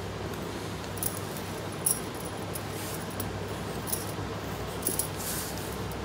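Bangles on the drawing wrist clinking lightly now and then as the hand moves: about five short clinks over a steady background hum. A pencil scratches briefly on paper near the end.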